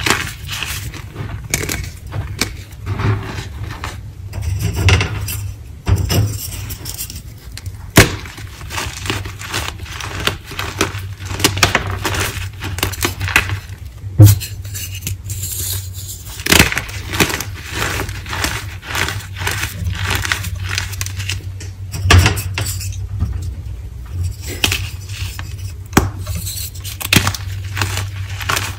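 Chunks of gym chalk being crushed and crumbled in the hands over a pile of chalk powder: dense, irregular crunching and crackling, with the loudest snaps about eight and fourteen seconds in. A steady low hum runs underneath.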